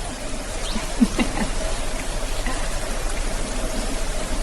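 Steady outdoor hiss, like light rain or running water, with a few faint short chirps about a second in.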